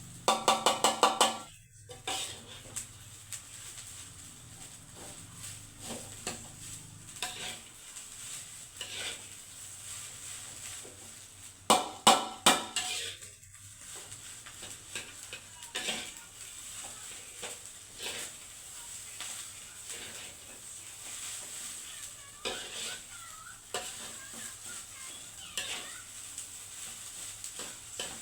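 Fried rice being stir-fried in a pan, a utensil scraping and stirring over a steady sizzle. Twice, at the start and about 12 seconds in, there is a quick loud run of ringing metal clanks against the pan.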